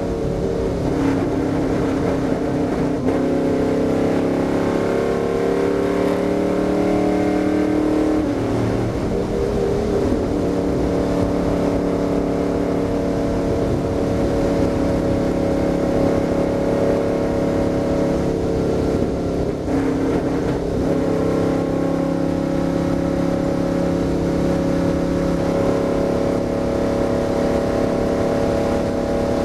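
Stock car's V8 engine running hard at track speed, heard from inside the cockpit. The engine note dips and picks up again about eight seconds in and again about twenty seconds in, otherwise holding steady.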